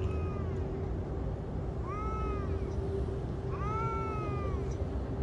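A cat meowing three times, each call rising then falling in pitch, about every two seconds, the last one the longest. A steady low hum runs underneath.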